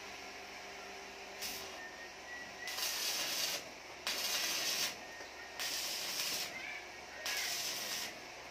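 Electric arc welding on a marine diesel exhaust pipe at its flange: a short burst of arc hiss about a second and a half in, then four hissing bursts of about a second each with short pauses between.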